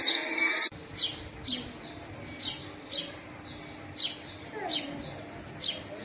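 House sparrows chirping: a loud, dense chirping cuts off abruptly under a second in, then short chirps repeat about twice a second.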